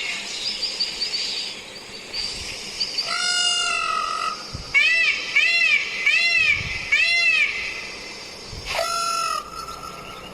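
Peacock calling: a longer call about three seconds in, then four short calls in quick succession, each rising and falling in pitch, and another call near the end. Fainter high chirps come in the first few seconds.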